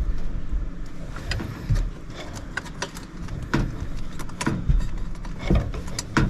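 Irregular clicks, knocks and rattles of tools and parts being handled during hands-on repair work, over a steady low hum.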